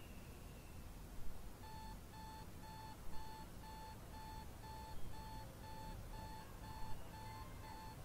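Electronic alarm clock beeping: a steady, evenly repeating beep about twice a second that starts a second and a half in. Soft low thumps come about every two seconds underneath.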